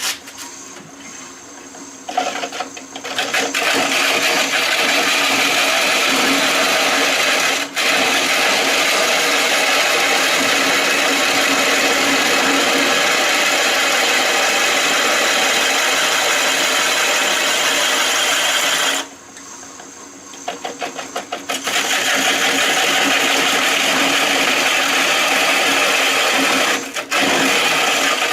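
Bowl gouge cutting into a maple burl spinning on a Shopsmith lathe, giving a loud, steady rasping hiss of wood being cut. The cut stops for about two seconds around the middle, leaving only the quieter hum of the running lathe, then starts again, with one short break near the end.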